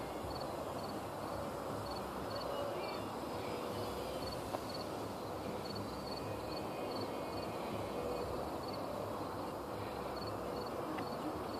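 A steady hiss of open-air ambience with an insect chirping high in short groups of pulses that repeat about twice a second. Faint low hoot-like tones come and go now and then.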